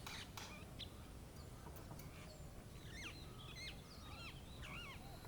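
Faint birdsong: a quick run of short, bending chirps in the second half, over a low, steady outdoor background.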